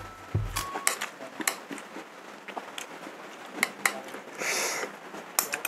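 A metal spoon clicking and scraping against a plate of rice in scattered small strikes while a man eats, with a brief hiss a little past the halfway point. Background music ends within the first second.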